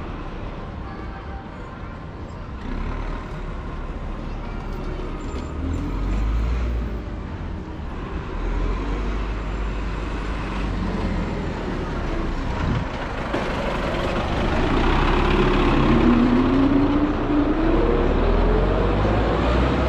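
Motor vehicle engine running under a steady low rumble, with a whine that rises steadily in pitch over the last few seconds as it speeds up.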